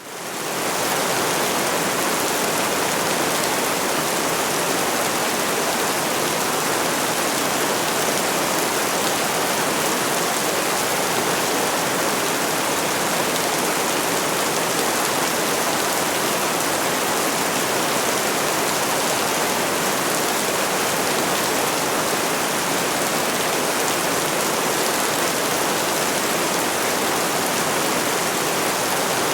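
Heavy rain falling in a steady, even hiss. It fades in over the first second, then holds constant.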